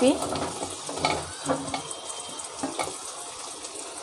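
Sliced kohlrabi tipped into hot oil and spice paste in a metal pot, sizzling, with a few light knocks of the pieces and spoon against the pot.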